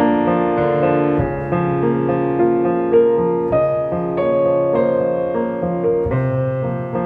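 Background piano music, held notes and chords changing every half second to a second.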